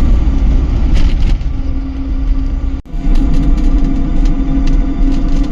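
Camper tricycle driving at speed on the highway: a steady drive hum over heavy road and wind rumble, with a momentary break a little under three seconds in.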